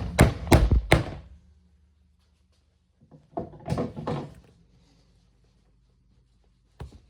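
A hole punch being whacked through a rubber shoe sole on a block anvil: a quick run of three or four sharp strikes at the start, then a few more about three and a half seconds in.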